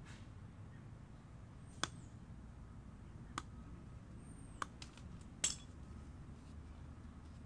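Sharp metallic clicks and clinks from side cutters and copper wire working against steel rebar: four distinct strokes spread over a few seconds, the loudest near the end, with a few lighter ticks between.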